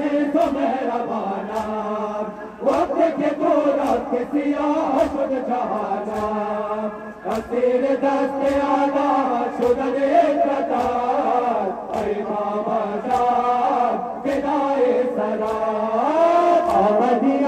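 Male voices chanting a noha, a Shia mourning lament, in a steady melodic recitation, with a regular beat of sharp strikes running under it.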